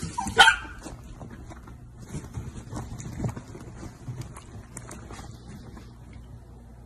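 A dachshund barks once, loudly, about half a second in; after that only faint rustling and soft scattered clicks.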